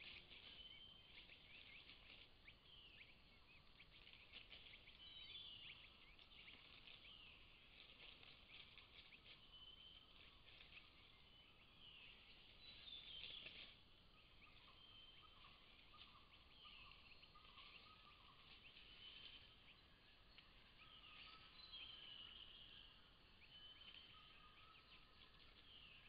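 Faint chorus of many wild birds calling at once: short high chirps, trills and whistles overlapping throughout, joined by some lower whistled notes in the second half.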